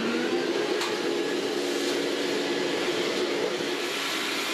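Vacuum cleaner running steadily: a motor whine over rushing air.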